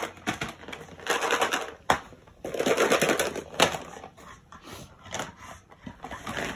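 Dry dog kibble rattling and shifting in plastic bins as they are lifted and set down on the floor: two longer rattles about a second in and near the middle, with a few sharp knocks of the bins.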